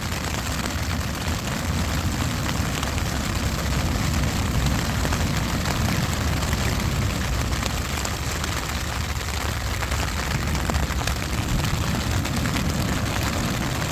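Steady rain pattering on a tent, over a constant low rumble.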